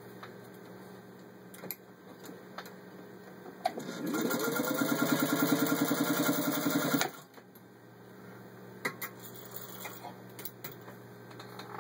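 Singer 201-2 sewing machine's gear-driven potted motor winds up about four seconds in, runs at a steady fast stitch through a 1/8-inch leather belt for about three seconds, and stops abruptly. Light handling clicks come before and after the run.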